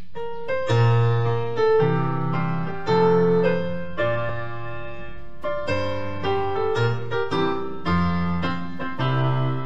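Piano playing the instrumental introduction to a hymn: held chords under a simple melody, the notes changing about every half second to a second.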